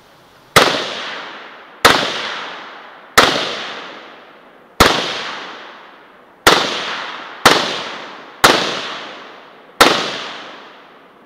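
Russian-made SKS semi-automatic rifle firing 7.62×39mm rounds: eight shots, roughly one every second or so, each trailing off in a long echo.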